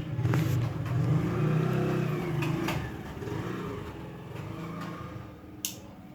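Telesonic 36-inch ceiling fan motor humming, the hum slowly growing quieter, with a few light clicks. The fan has a bad capacitor.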